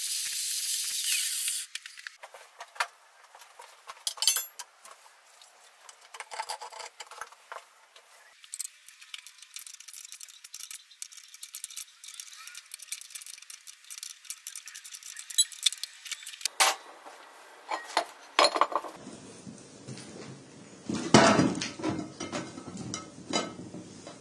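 An angle grinder cutting steel for the first second and a half, then scattered clinks and taps of steel parts being handled and fitted, with a cluster of louder clanks near the end.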